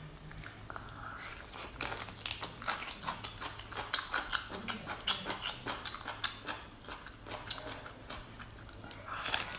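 Close-up eating sounds of chili-dressed seaweed: wet chewing and biting, made of many quick, sharp clicks and crunches, mixed with hands tearing and pulling at the slippery seaweed sheet.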